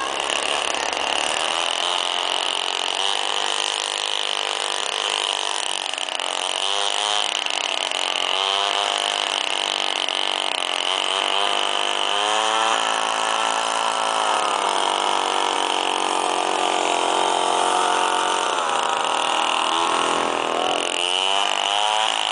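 Single-cylinder two-stroke engine of a Druzhba Elektron chainsaw powering a homemade motorized snow tow, running steadily and revving up and down several times, with a steady high whine alongside.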